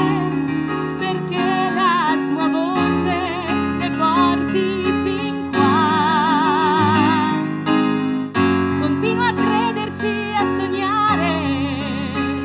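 A woman singing with strong vibrato over keyboard accompaniment, including a long held vibrato note about six seconds in.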